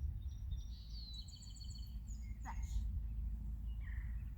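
Wild songbirds singing high, quickly repeated chirping notes over a steady low rumble of wind on the microphone, with one quick falling note about halfway through.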